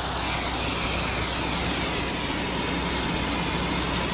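A high-pressure water jet from a fire monitor rushes and hisses steadily as it sprays a training tower. A fire engine's pump runs underneath as a low, constant hum.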